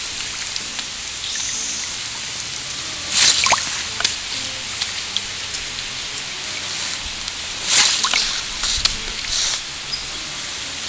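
Kayak paddling on flat water: paddle blades splashing in three short surges, with water dripping off the blades over a steady hiss of moving water.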